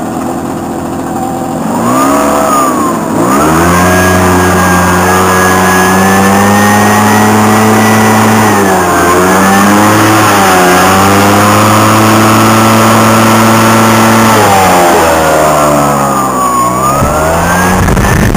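Small petrol leaf-blower engine running hard: it revs up about three seconds in and holds at high speed with two short dips in the middle, is throttled back shortly before the end, then revs up again.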